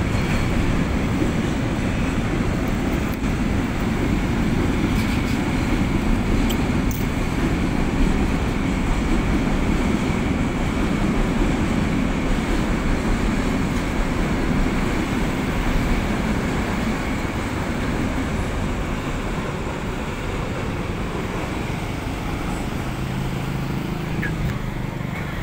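Long container freight train rolling past, a steady rumble of wagons on the rails, growing somewhat quieter in the last few seconds.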